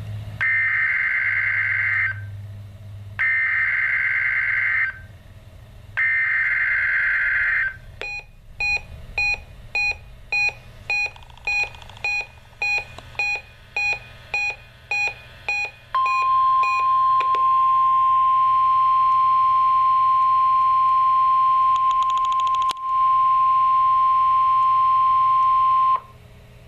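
NOAA Weather Radio required weekly test signal: three bursts of warbling SAME digital header data tones, then a string of short beeps about two a second for some eight seconds, then the steady 1050 Hz warning alarm tone for about ten seconds over radio hiss, cutting off suddenly.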